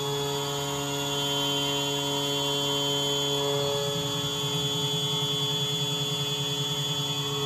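CNC vertical milling machine cutting an aluminium part under flood coolant: a steady spindle and cutting whine with several constant tones. The low hum takes on a rapid pulsing from about halfway through.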